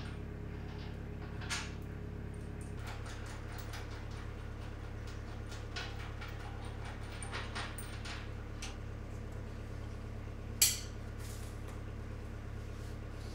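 Scattered metallic clinks of a wrench and bolts against a planer's steel base and motor mount, one sharp clank about ten and a half seconds in, over a steady low hum.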